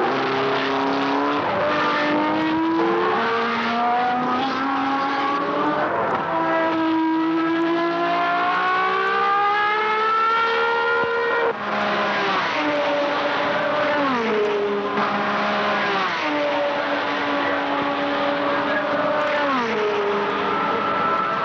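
High-revving racing car engines: one car accelerates with its note rising steadily for several seconds, and cars pass one after another, each engine note dropping sharply in pitch as it goes by.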